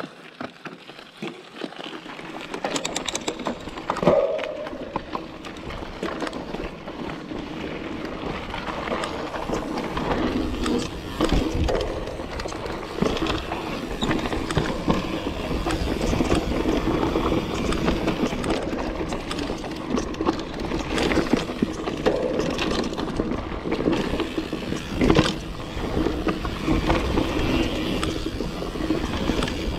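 Mountain bike riding over a dirt forest trail: steady tyre and rolling noise with the bike's rattle, picking up after the first couple of seconds, and a few sharp knocks as it hits bumps.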